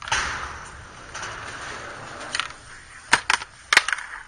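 Skateboard scraping, fading over about two seconds, then several sharp clacks near the end as the board slaps the concrete and the skater falls.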